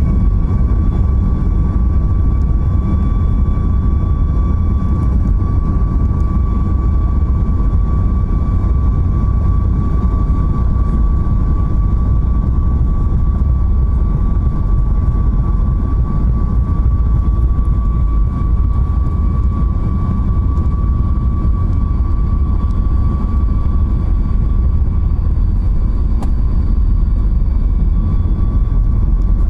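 Boeing 737 MAX 8's CFM LEAP-1B turbofan engines running at climb power after takeoff: a steady heavy rumble with a constant high whine over it.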